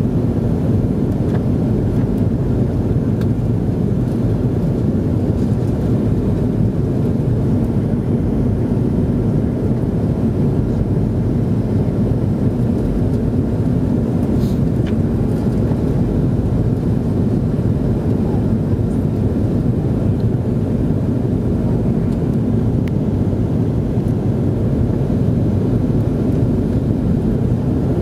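Steady low rumble inside the cabin of a McDonnell Douglas DC-9 airliner on descent: the drone of its rear-mounted Pratt & Whitney JT8D engines mixed with airflow noise, unchanging throughout.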